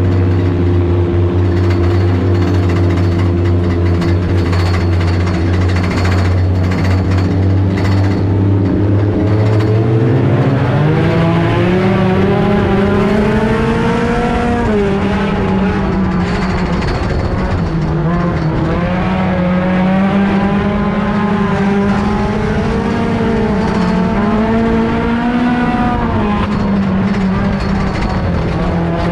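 Dirt-track race car's engine heard from inside the cockpit. It runs at steady low revs, climbs in pitch about nine seconds in, then rises and falls with the throttle around the oval.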